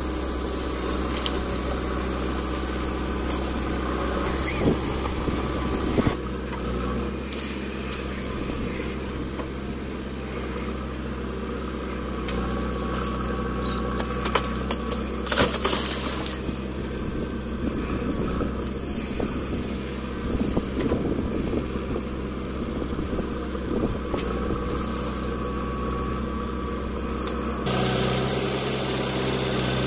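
JCB 3DX backhoe loader's diesel engine running steadily as it digs wet clay and swings it into a tractor trolley, with a few sharp knocks along the way. The engine sound gets louder near the end.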